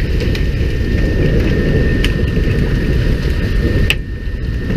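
Steady low rumble of a small fishing boat's engine mixed with wind on the microphone, with two sharp knocks, about two and about four seconds in.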